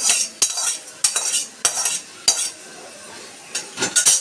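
Metal spatula scraping and clinking against a metal kadai (wok) as the last of a fish curry is scraped out into a steel bowl: six or seven short scrapes, with a pause of about a second in the middle.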